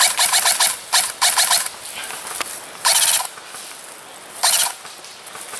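M4-style airsoft electric rifle (AEG) firing short full-auto bursts, each a rapid buzzing rattle. The longest burst comes at the start, with shorter ones about a second, three seconds and four and a half seconds in.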